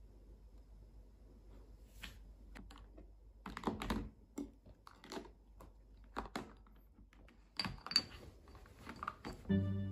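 Skincare bottles and jars being picked up and set down on a wooden table and into a plastic organiser box: scattered light knocks, clicks and taps, loosest after the first couple of seconds. Background music comes in near the end.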